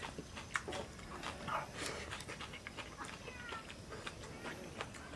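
Close-up eating sounds: chewing with wet mouth clicks and lip smacks, and wooden chopsticks clicking against a wooden bowl.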